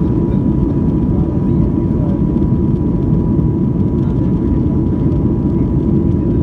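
Steady roar of a Boeing 737-800's CFM56 jet engines and rushing airflow heard inside the cabin as the airliner climbs out after takeoff, with a thin steady whine above it.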